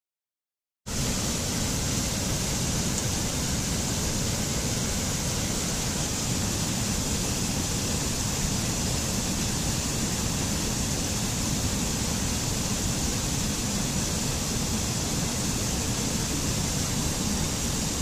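Steady rushing of a small mountain stream cascading over rocks, starting abruptly about a second in.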